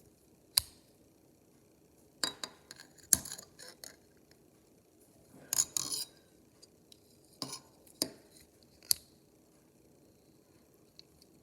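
Metal implements of a Leatherman multi-tool being folded open and shut, giving irregular sharp metallic clicks and clinks, some single and some in quick clusters.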